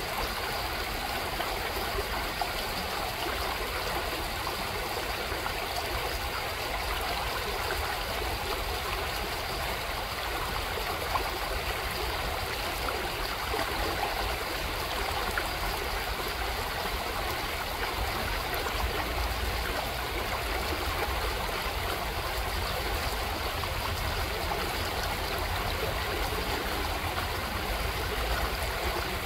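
A shallow, pebble-bottomed creek running over stones and a small riffle, a steady rush of water with no breaks.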